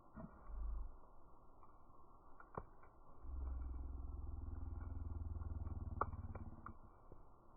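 Wood fire in a fire pit, its pops and crackles coming as scattered sharp clicks with the loudest about two and a half and six seconds in. A low steady hum runs through the middle for about three seconds.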